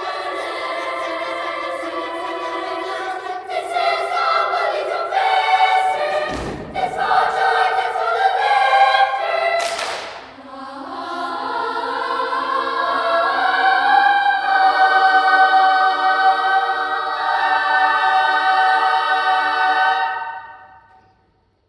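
Children's choir singing in sustained chords. There is a low thud about six seconds in and a short hiss near ten seconds. The choir then holds a long chord that dies away near the end.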